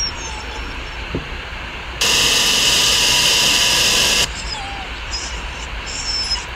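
Jumpscare sound effect: a loud, harsh noise that starts suddenly about two seconds in, lasts about two seconds and cuts off sharply, over a low steady background hiss.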